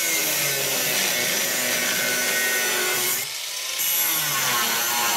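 Ryobi Handyline angle grinder running and grinding through a rusted steel seat-hanger bolt, its galvanizing worn away. The grind is steady with a whine, and eases off briefly about three seconds in before it bites again.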